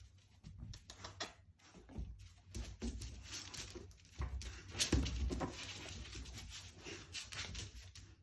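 An Akita Inu dog moving about in a small room: irregular scuffles and knocks, the loudest about five seconds in.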